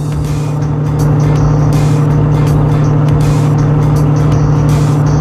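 Steady low drone of a ferry's engines with a rumble beneath, under background music. The sound gets a little louder about a second in.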